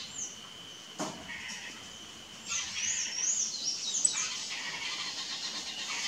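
Saffron finch singing: one short high whistle at the start, then about two and a half seconds in a quick run of high, wavering whistled notes. A steady high tone runs under the first half, with a single click about a second in, and a steady high hiss fills the last part.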